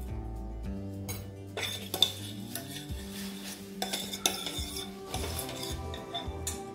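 Steel spoon clinking and scraping against a stainless steel saucepan while stirring cumin seeds in hot ghee, with sharp clinks about two seconds in and again about four seconds in.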